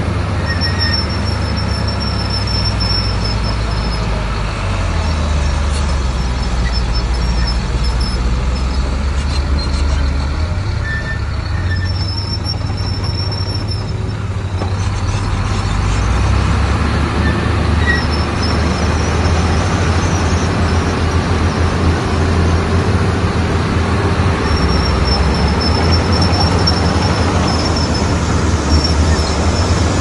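Heavy diesel engine of a Komatsu bulldozer running steadily at work, its low note shifting several times, with a thin high whine coming and going.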